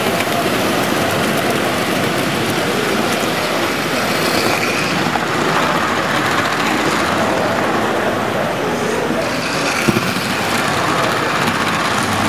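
Tri-ang model trains running fast along the layout's track, a steady rolling noise of wheels on rail.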